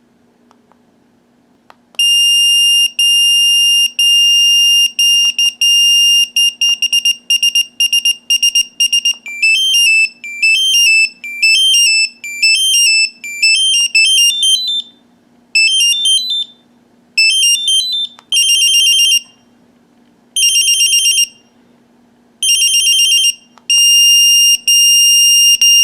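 Unication NP88 numeric pager's beeper playing through a series of different alert tones as each is selected, starting about two seconds in. The tones run from steady long beeps to faster beeping, short rising and falling melodies and rapid warbling bursts, with long beeps again near the end.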